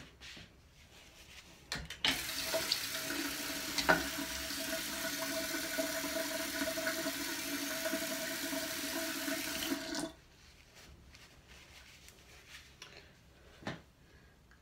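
Bathroom sink tap turned on about two seconds in, water running steadily into the basin with a steady hum, then shut off suddenly some eight seconds later. A sharp click sounds about four seconds in.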